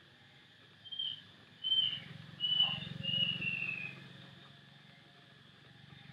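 A bird calling: four short high whistled notes, the last one longer and falling in pitch, over a steady low hum.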